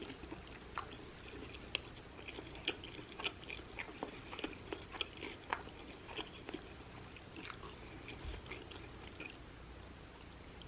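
A person chewing a mouthful of shrimp taco, with small, irregular wet clicks and soft crunches that thin out over the last few seconds.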